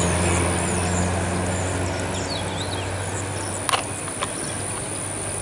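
A motor vehicle engine running with a steady low hum that fades after about two seconds. High, quick falling chirps and a couple of sharp clicks near the end come over it.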